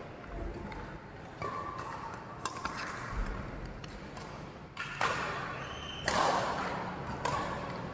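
Badminton rackets striking the shuttlecock in a rally: a series of sharp pinging hits, roughly one a second.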